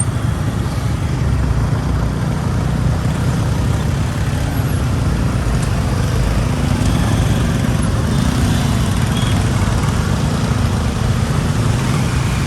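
Steady, continuous low rumble of road traffic or a moving vehicle, with no distinct events standing out.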